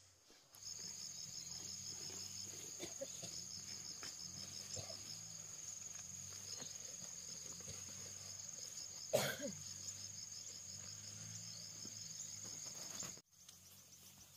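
Forest insects singing: a steady high-pitched whine with a fast, evenly pulsing trill beneath it. It starts abruptly just after the start and cuts off suddenly near the end. A single short, sharp sound about nine seconds in is the loudest moment.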